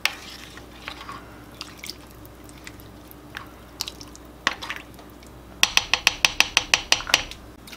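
A plastic spoon stirring watery soup in a slow cooker's ceramic crock: liquid sloshing with scattered clicks of the spoon against the crock. Near the end comes a quick run of about ten sharp clicks.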